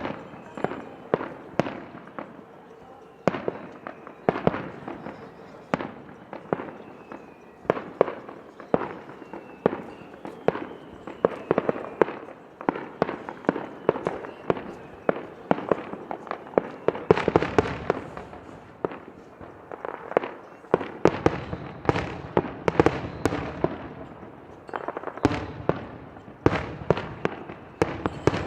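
Aerial fireworks in a star-mine barrage: a rapid, unbroken run of sharp bangs, several a second, each trailing off in echo, densest about two-thirds of the way through.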